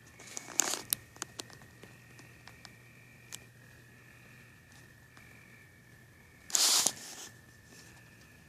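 Crickets chirping as a steady high, faint trill. A few clicks and rustles come in the first second, and a loud rustling burst lasting about half a second comes near the end.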